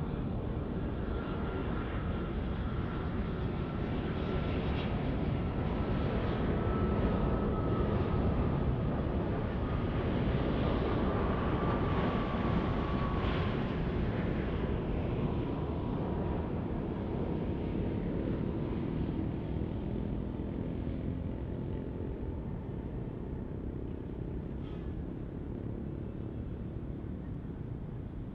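Boeing 787 airliner's GEnx turbofan engines on final approach: a steady jet rumble with a thin fan whine that slides down in pitch as the plane passes, loudest midway and then easing off.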